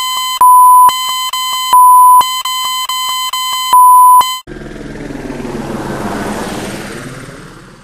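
Electronic beeping on a steady tone: a run of short beeps broken up by three longer, much louder beeps. About four and a half seconds in it gives way to a rushing whoosh that swells and then fades away.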